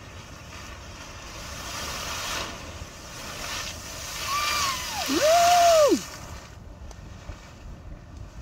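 A geyser erupting: a rushing hiss of water and steam that swells over the first few seconds and drops away suddenly about six and a half seconds in. Around the loudest part, a voice calls out twice in long, high exclamations that rise and then fall in pitch.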